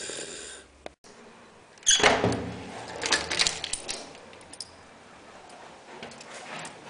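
A door being handled and opened: a sudden knock about two seconds in, then a quick run of clicks and rattles from the handle or latch. A short hiss of TV static comes at the start.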